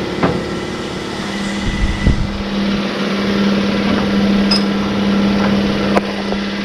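Air compressor motor running with a steady hum, with a few sharp clicks and knocks from tools being handled.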